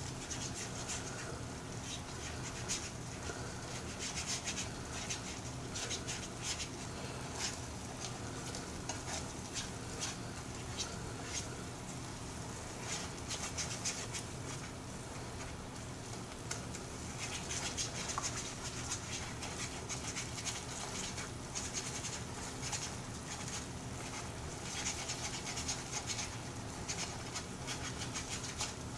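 Plastic fork scraping and stirring peaches in a thickening cornstarch sauce in a frying pan, with the sauce sizzling on the heat. The scrapes come in quick clusters of short strokes, over a steady low hum.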